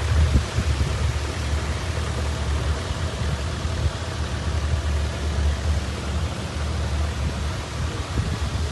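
Kubota KX71-3 mini excavator's diesel engine running steadily, a low hum under a broad mechanical hiss.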